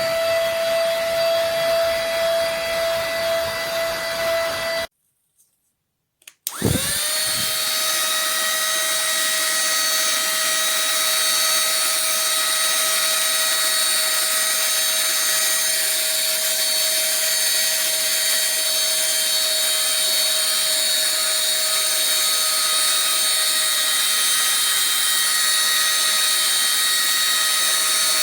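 Small cordless handheld vacuum cleaner running with a steady high whine. It is switched off about five seconds in, and after a click is switched back on a second and a half later, its motor spinning up quickly to the same steady whine.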